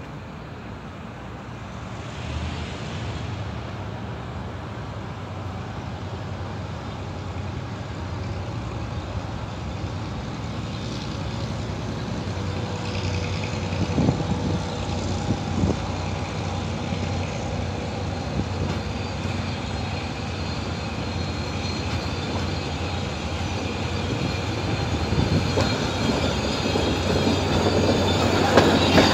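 Passenger train approaching along the platform, a steady low engine hum growing gradually louder, with a few sharp knocks about halfway through. Near the end the coaches are close by and passing.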